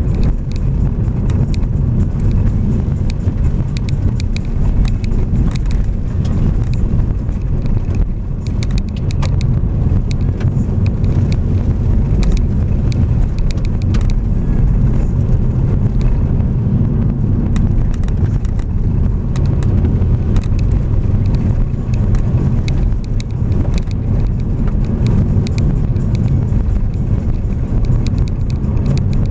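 Vehicle driving along a gravel road: a steady low rumble of tyres on the rough surface, with many small, scattered clicks and pings of gravel stones.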